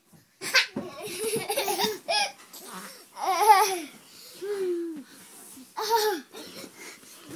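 Young child laughing and babbling in a run of high-pitched bursts, the loudest about three and a half seconds in.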